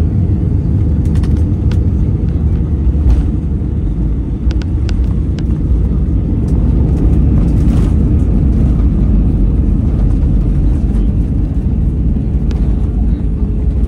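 Airbus A319 cabin noise from a seat over the wing during landing: a steady low roar of engines and airflow with a few faint clicks and rattles. About eight seconds in there is a brief knock as the main wheels touch down. The roar then grows louder and stays up as the ground spoilers rise and the jet rolls out on the runway.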